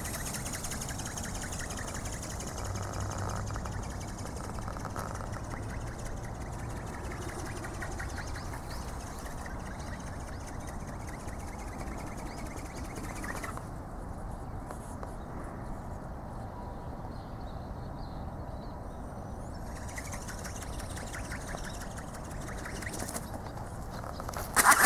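Small battery-powered ornithopter flying overhead: the faint, even buzz of its electric motor and gearbox with the rapid beating of its flapping wings, over open-air background noise. The sound changes abruptly twice.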